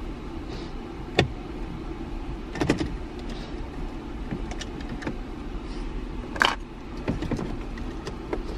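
Sharp clicks and taps of a Phillips screwdriver and hands working the plastic dash trim around a Mitsubishi Lancer's head unit, as its retaining screws come out. There is one click about a second in, a small cluster near three seconds and the loudest a little past six seconds, over a steady low hum.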